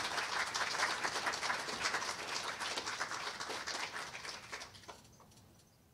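Audience applauding, a dense patter of many hands clapping that fades away about five seconds in.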